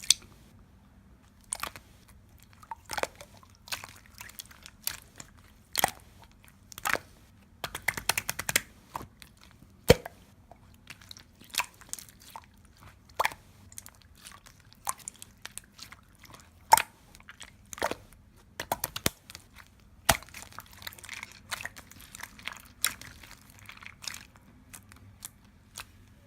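Crunching and chewing: irregular sharp crunches, one to several a second, as of something crisp being bitten and chewed.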